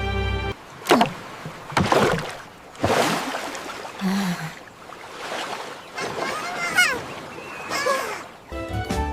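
Water splashing and sloshing in a series of separate surges about a second apart, some with short wavering high cries on top.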